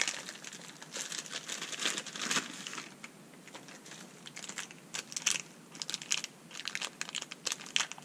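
A thin plastic bag crinkling and rustling in nitrile-gloved hands as a new piston pin is unwrapped. The rustling comes in irregular bouts, with a quieter lull a little before the middle.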